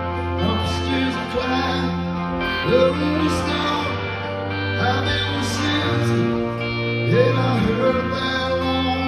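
Live rock band playing: electric and acoustic guitars over drums, with cymbal crashes.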